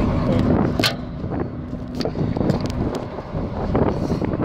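Steady low rumble inside a car's cabin, with a few sharp clicks and knocks from the phone and fidget spinner being handled close to the microphone; the loudest click comes just under a second in.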